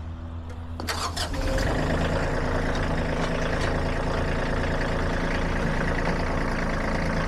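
Compact tractor engine running, brought up from idle about a second and a half in and held at a steady, higher speed, with a steady whine on top while the front-end loader's hydraulics lower the bucket to the ground.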